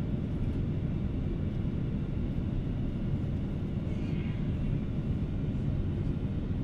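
Steady cabin rumble of a Boeing 777-300 airliner in descent, engine and airflow noise heard from inside the passenger cabin.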